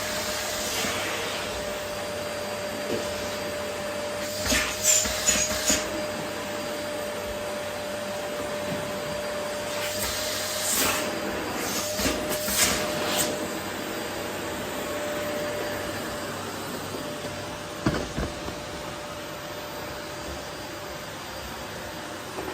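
Vacuum cleaner running steadily while vacuuming up rose petals, with a faint steady whine that fades out about two-thirds of the way through. Short, louder crackling bursts come in several times.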